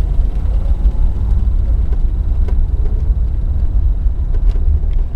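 1999 Land Rover Discovery II engine running as a steady low rumble, with a few faint clicks. The owner is chasing a sudden fast clicking that he suspects comes from the upper manifold or a switch or valve, not the lifters.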